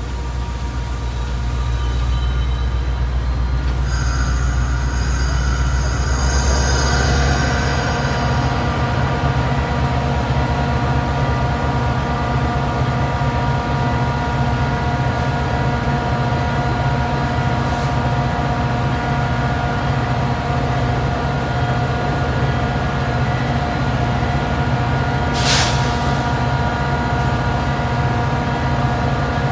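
Metra commuter train of bilevel cars braking to a stop, with the wheels and brakes squealing for a few seconds, then standing with a steady hum and rumble. A short hiss of air comes near the end.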